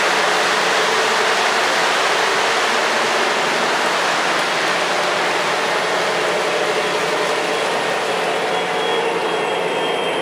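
O-gauge model freight train running on three-rail track: the MTH GP35 and its boxcars' wheels make a steady rushing rumble that eases slightly over the seconds.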